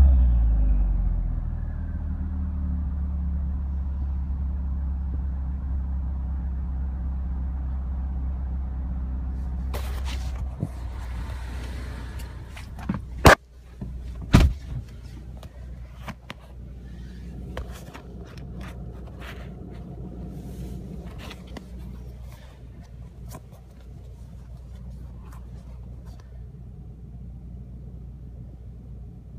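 2015 Ford Mustang EcoBoost's 2.3-litre turbocharged four-cylinder dropping back from a rev to a steady idle. Around the middle come a few sharp clicks, two of them loud, and the idle runs quieter after them.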